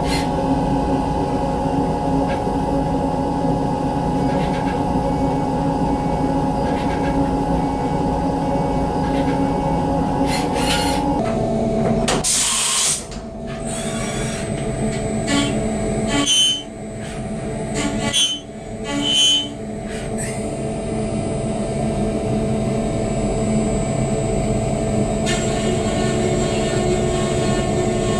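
CNC vertical milling machine running with a steady machine whine. Its pitch shifts about eleven seconds in, and between about twelve and twenty seconds there are several short high-pitched bursts and brief dips in the sound.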